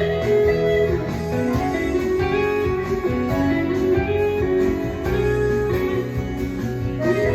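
Instrumental break in a song: a guitar plays a melody over bass and a steady beat, with no singing.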